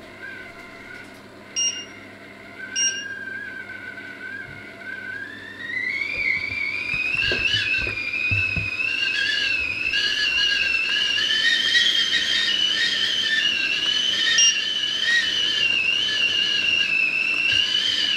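Enamel stovetop whistling kettle whistling as the water comes to the boil: a thin whistle that rises in pitch and grows louder about six seconds in, then holds with a slightly wavering pitch. Two short electronic beeps near the start.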